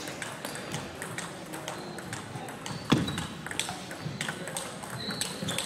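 Table tennis rally: the ball clicks off the rackets and the table over and over, with a loud thud about three seconds in and a couple of short high squeaks.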